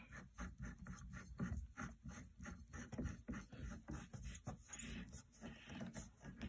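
A leg being screwed by hand into an IKEA Hauga bed frame: a run of faint, quick scraping clicks, several a second, as the thread turns and tightens.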